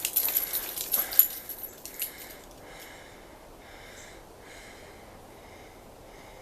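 Crackling and snapping clicks, like twigs and dry leaves underfoot, for about two seconds. Then quiet woods, with a faint chirp repeating about twice a second.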